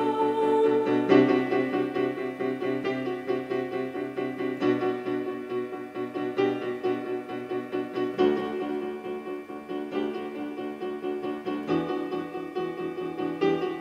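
Instrumental background music: a quick, even pulse of repeated notes over held chords, the harmony shifting about a second in, again around eight seconds, and near the end.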